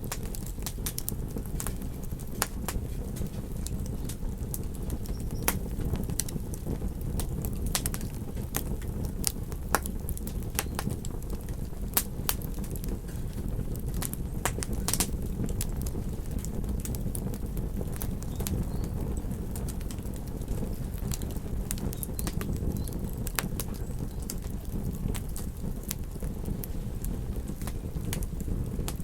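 Campfire crackling, with sharp pops scattered irregularly over a steady low rumble of beach surf.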